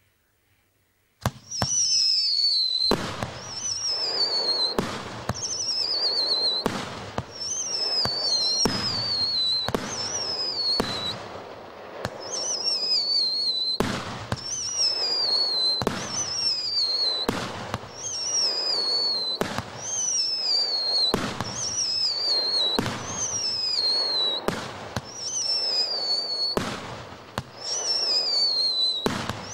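Fakel 19-shot firework battery firing: after a second of quiet, shots go off one after another about every two seconds, each a sharp bang followed by a falling whistle and a crackle.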